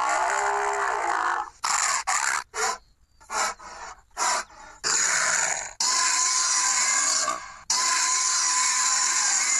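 Tyrannosaurus rex roar sound effects for an animated dinosaur: a breathy growl, then a quick run of short bursts, then three long, rasping roars.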